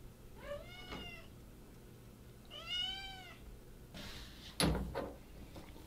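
A domestic cat meowing twice, about two seconds apart, each call rising and then falling in pitch, the second louder. A sharp knock a little over four and a half seconds in.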